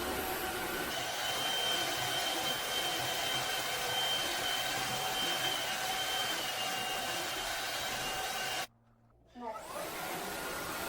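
Roborock F25 GT cordless wet-dry vacuum mop running steadily, a motor hiss with a high whine over it. Near the end it cuts out abruptly for about half a second, then comes back with a short rising whine.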